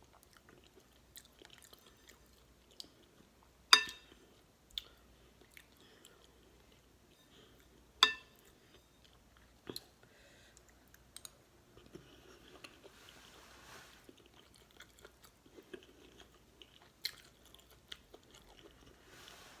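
Close-miked chewing and eating of beef stew and cornbread: soft, wet mouth sounds and small smacks, broken by scattered sharp clicks, the two loudest about four seconds apart.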